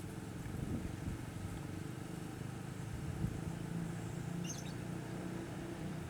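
An engine runs steadily in the background as a low, even hum. A short high chirp sounds about four and a half seconds in.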